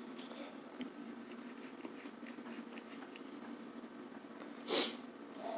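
Kitchen knife cutting through a baked stuffed bell pepper on a metal baking sheet: faint, scattered small crunches and taps over a steady low hum. About 4.8 s in comes one short, loud rush of noise.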